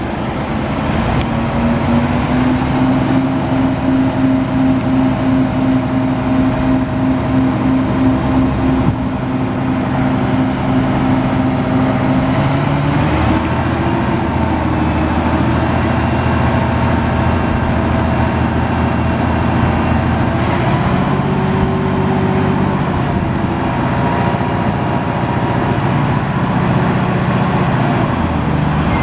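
A Peterbilt 377 Super 10 dump truck's diesel engine running steadily, its engine speed rising and falling a few times, with pitch shifts about a second in, near the middle and later on.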